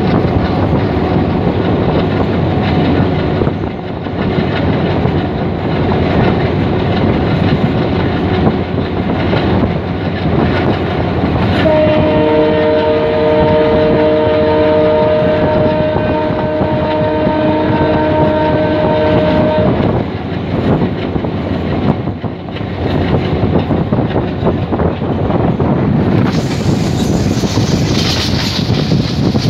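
A train running on the rails, heard from a carriage window: a steady rumble with wheel clatter. About twelve seconds in, a train horn sounds one long chord-like blast of about eight seconds. A rushing hiss of wind comes in near the end.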